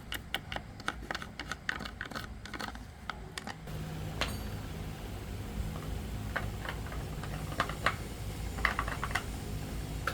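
Quick, irregular light clicks and taps of small parts and hand tools being handled during a machine repair. About three and a half seconds in, a low steady hum sets in, and scattered clicks carry on over it.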